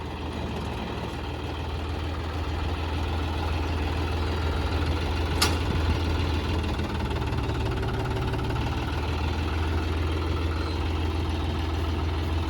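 John Deere 5105 tractor's diesel engine running steadily, with one sharp click about five seconds in.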